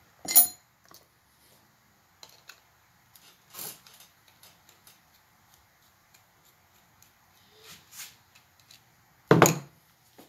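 Metal engine parts of a Cannondale 440 engine clinking and knocking as they are handled and pulled apart during disassembly: a few sharp, separate knocks with quiet between them, the loudest near the end.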